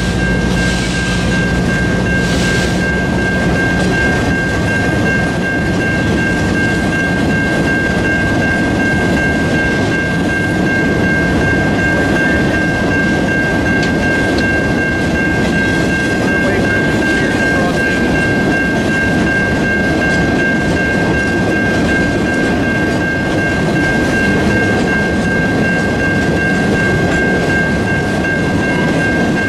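Ore hopper cars of an iron-ore train rolling past in a steady rumble, most of them running empty. A steady high-pitched tone sounds over the rolling noise.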